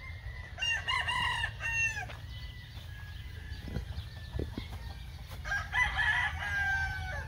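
Gamecocks crowing from their cages: one long crow about half a second in and another starting about five and a half seconds in, over a steady low rumble.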